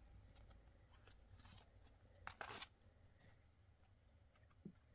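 Near silence, with faint rustles and clicks of trading cards being slid through the hands, the clearest a little past the middle.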